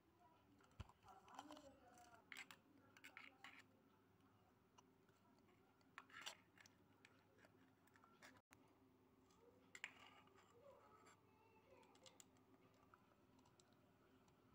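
Faint, scattered clicks and scrapes of a small spoon and tiny aluminium pots being handled and stirred, with near silence between them.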